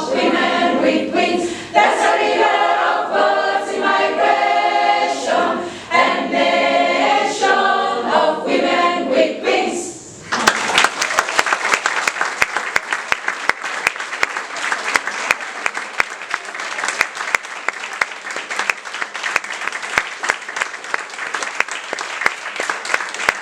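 An a cappella choir singing, stopping about ten seconds in; then an audience applauding.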